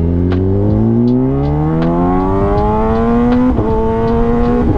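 Kawasaki Ninja ZX-10R's inline-four engine pulling hard from a junction, its pitch rising steadily for about three and a half seconds. An upshift then drops the pitch, and it holds steadier.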